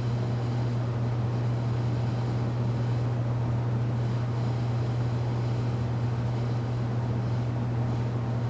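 Casablanca Delta ceiling fan running steadily on medium speed: a constant low hum under an even rush of air.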